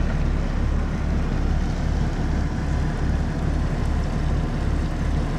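Motorboat engines running steadily under way, a low pulsing throb under a hiss of water and wind.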